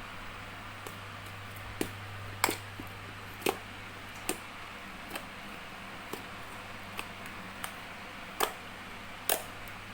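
Clear-glue and dish-soap slime being pressed and poked, giving sharp pops and clicks about once a second, over a steady low hum.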